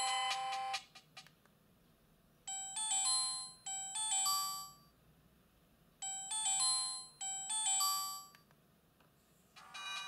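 myPhone Halo Easy mobile phone playing its built-in ringtones through its small loudspeaker. The tail of one ringtone ends about a second in. Then a short melody of a few notes plays twice with a pause between, and another ringtone starts near the end.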